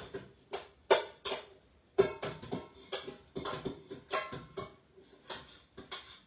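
Irregular series of sharp metallic clinks and clanks, about a dozen knocks each ringing briefly.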